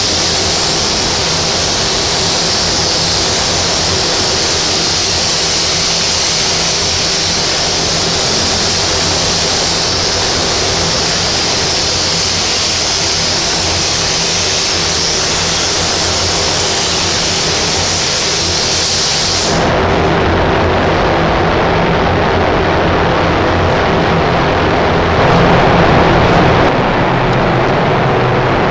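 Steady, loud hiss of rushing air from an HVLP paint spray gun and the spray booth's airflow. About two-thirds of the way through, the high hiss cuts off abruptly, leaving a lower, duller rush of air.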